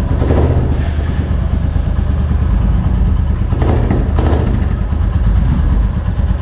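Royal Enfield Classic 350's single-cylinder engine idling steadily.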